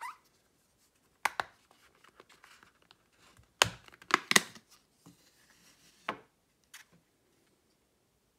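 Plastic back cover of a Cubot J3 Pro smartphone being pried off by hand: a run of sharp clicks and snaps as its clips let go, with scraping between them. The loudest snaps come about four seconds in.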